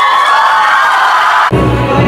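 Crowd cheering and whooping, cut off abruptly about one and a half seconds in by music with a heavy bass beat.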